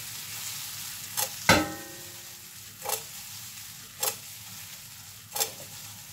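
Chopped peppers and onion sizzling in butter and oil in a frying pan over a gas flame while the pan is tossed, with five sharp clanks of the pan spread through, one of them ringing on metallically.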